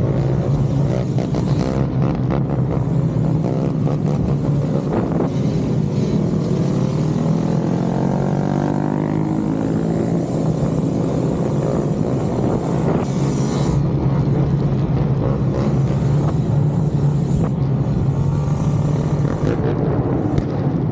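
Motorcycle engine running steadily while riding, with a second engine's pitch rising and falling about eight to ten seconds in, as of another bike revving close by.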